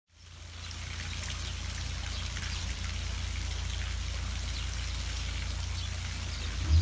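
Water running and trickling at a canal lock, a steady splashing rush with a low rumble underneath, fading in at the start. A brief low thump near the end.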